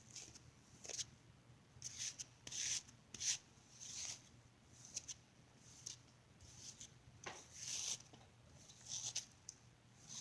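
Hairbrush strokes dragging through tangled hair while the knots are worked out: a run of short, irregular brushing sounds.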